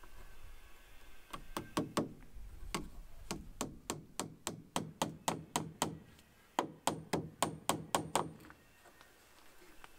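Claw hammer tapping on the roof of a wooden bee house made from a log: quick light strikes at about three to four a second, in two runs with a short pause between them, stopping shortly before the end.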